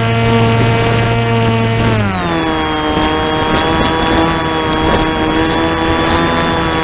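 RC model airplane's motor and propeller heard from on board, running at high throttle, then throttled back about two seconds in so the pitch drops and holds lower. Wind rushing past the airframe underneath.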